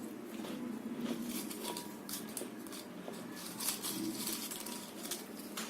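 Close-up crunching and chewing of crispy potato chips, in short, irregular crunches.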